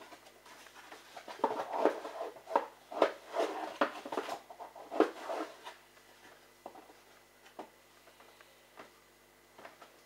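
Plastic clatter and knocking from handling a liquid detergent bottle and dosing cup, a busy run of irregular knocks for about four seconds, then a few scattered light taps.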